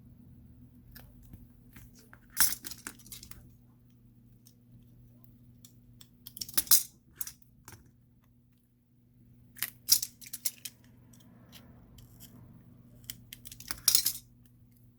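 Small sharp clicks and crackles of adhesive tape strips and small tools being handled, in four short clusters a few seconds apart.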